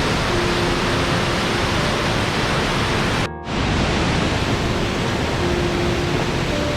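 Steady, loud rush of fast-flowing water, such as a mountain creek or waterfall. It drops out for a moment about three seconds in.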